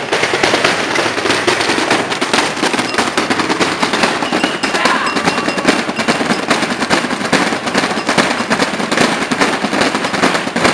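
Pyrotechnics crackling: a loud, dense, unbroken run of rapid sharp pops.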